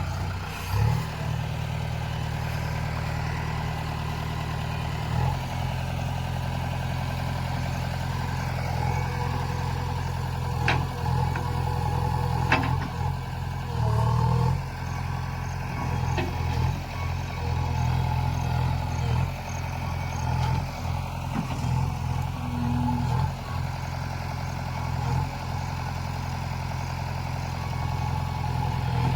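Diesel engine of a JCB 3DX backhoe loader running steadily as it works, its note shifting a few times, with a couple of sharp metallic knocks about ten and twelve seconds in.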